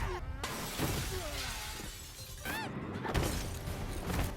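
Film fight sound effects: glass shattering and debris crashing, over a music score.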